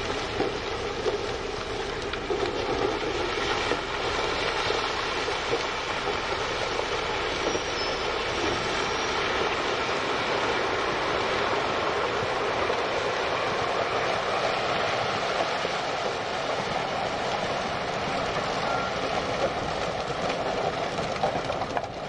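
Giant haul truck dumping its load: a steady rush of broken rock pouring out of the raised dump body and sliding down the pile.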